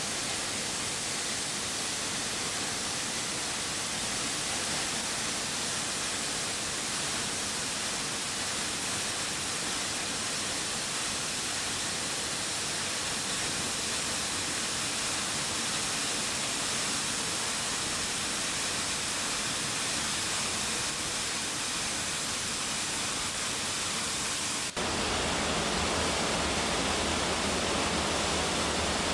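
Waterfall rushing as a steady, even roar of falling water. About 25 seconds in it abruptly turns louder and deeper.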